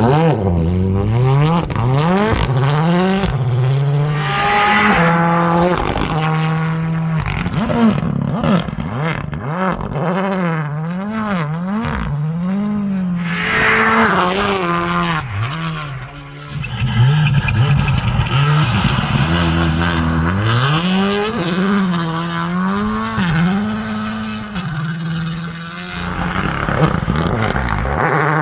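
Rally car engines running hard, the pitch climbing and dropping again and again with throttle and gear changes. The loudness dips briefly about halfway through, then picks up again.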